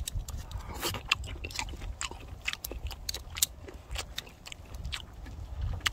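Close chewing of a mouthful of boiled webfoot octopus, with many quick smacking clicks throughout and a steady low rumble underneath.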